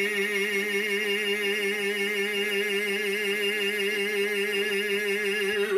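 Recorded male singing voice from a Gemmy life-size 5 ft animatronic dancing Santa, holding one long note with a steady vibrato and cutting off suddenly near the end.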